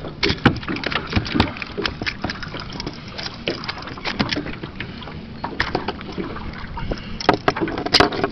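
Irregular clicks, clatter and knocks of a bluefish being unhooked on the deck of a small aluminium boat: metal pliers working at a treble hook while the fish jerks against the deck, with a loud knock about eight seconds in.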